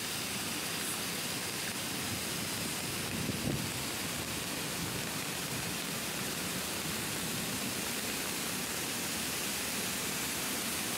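Steady hiss of heavy rain, with a brief low bump about three and a half seconds in.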